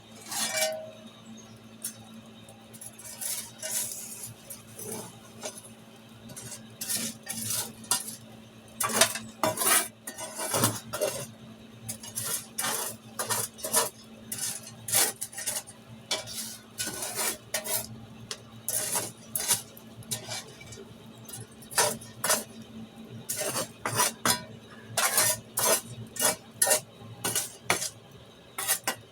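Irregular metallic clinking and scraping of a charcoal forge fire being worked with metal tools, in quick clusters, over a steady low hum.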